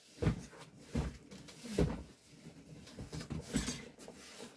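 Cardboard shipping box being picked up and handled: a few dull knocks and bumps about a second apart, then a brief scraping rustle near the end.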